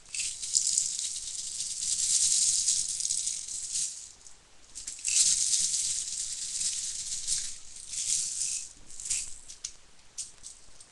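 Plastic 0.2 g BBs rattling in their plastic bottle as it is shaken to pour them into the magazine of a pump-action BB gun. The rattle comes in two long spells with a short pause about four seconds in, then a few scattered clicks.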